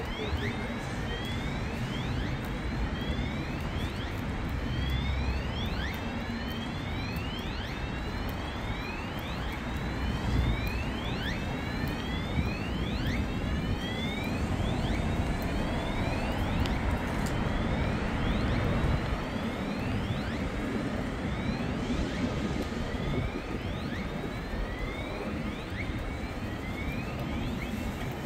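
Downtown street ambience: a steady rumble of traffic, with a short high squeak that falls in pitch and repeats about every three-quarters of a second throughout.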